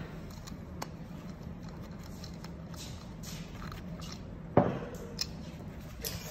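Gloved hands working the tyre and inner tube on an electric scooter's rear wheel as the tube's valve stem is pushed out through the rim: faint rubbing and small clicks, with one sharp knock a little past halfway.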